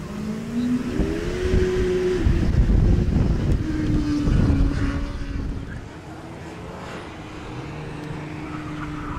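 Open-wheel race car's engine accelerating hard through an autocross course, its pitch climbing over the first couple of seconds and dropping back with lifts and gear changes. The engine is loudest about two to five seconds in, then runs lower and steadier as it eases off.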